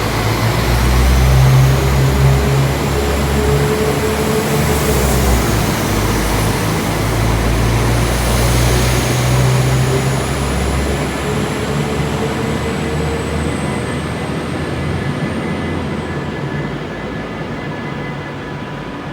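Train moving through the station: a loud rumble and rushing noise with a thin high whine that slowly falls in pitch, easing off toward the end.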